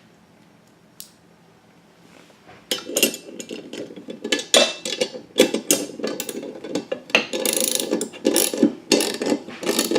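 Wrench tightening the nut on a lawn mower blade: a single click about a second in, then from about three seconds in, quick, irregular metallic clicking and rattling.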